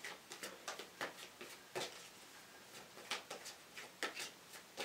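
A deck of tarot cards being shuffled by hand: a faint, irregular run of soft card flicks and taps.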